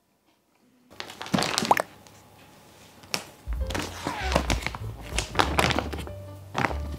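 Plastic food bag rustling and crinkling as it is handled and opened, with sharp crackles starting about a second in. Background music with a steady bass comes in about halfway through, under further rustles.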